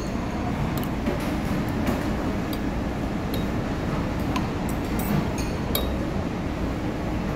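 Metal spoon and fork clinking now and then against soup bowls while eating, a handful of sharp clinks with short ringing, over a steady low room hum.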